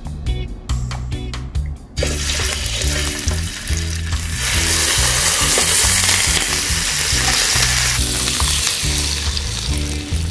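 Raw chicken pieces sizzling in hot cooking oil in a frying pan as they are laid in. The sizzle starts about two seconds in, is loudest in the middle and eases near the end, over background music.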